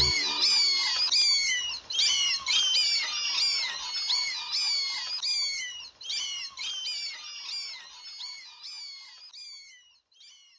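High, bird-like chirping calls, several a second, as the song's music cuts off at the start. The chirps thin out and fade away over the following ten seconds.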